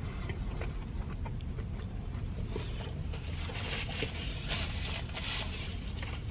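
Close-up chewing of a fried chicken sandwich, with small wet mouth clicks, and a paper sandwich pouch rustling and crinkling about halfway through, over a steady low hum.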